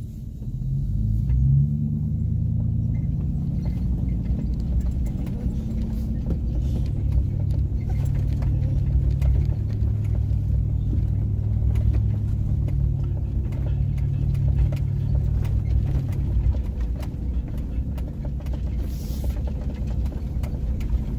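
Chevrolet Silverado pickup driving over a rough dirt trail: a steady low engine and tyre rumble with many sharp knocks and rattles as it jolts over the bumps. The engine note eases off about three quarters of the way through.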